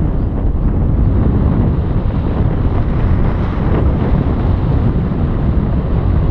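Wind buffeting the microphone: a loud, steady, rumbling rush of air with no pauses.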